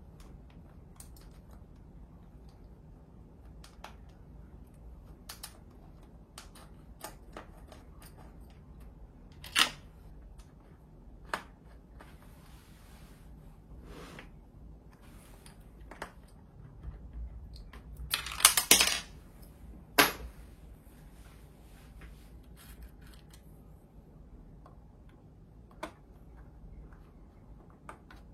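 Scattered small clicks and taps of hands and tools working on the internals of an opened 2015 iMac while its internal speaker is taken out, with a louder burst of clatter about 18 seconds in and a sharp knock about two seconds later.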